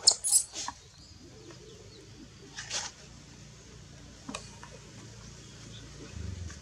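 Newborn macaque giving short high-pitched squeaks, a quick cluster in the first second and single ones about three and four seconds in.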